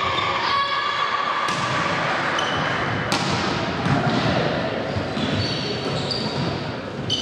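A volleyball rally in a gym: the ball is struck sharply twice, about a second and a half apart, with short high squeaks and players' voices in between. Each hit echoes in the hall.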